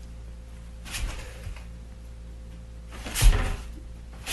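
Wooden under-counter cabinet doors being opened and shut. There are two knocks, a moderate one about a second in and a louder thump a little after three seconds.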